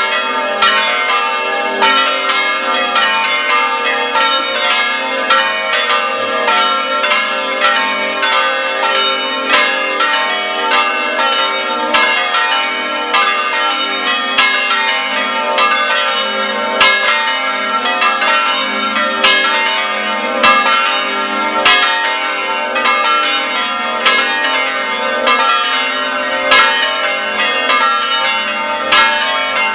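Church bells pealing together in a semi-plenum, most of the tower's bells sounding at once in a dense, continuous stream of overlapping strikes. The two small treble bells are silent because of a technical fault.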